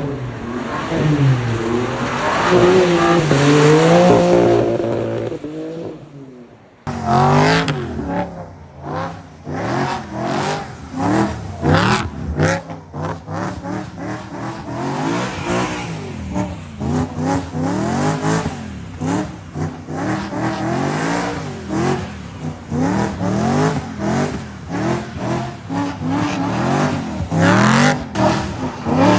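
BMW M3 engine revving up and down over and over under hard throttle while drifting. The sound drops away about six seconds in, then picks up again with quicker, choppier rises and falls in revs.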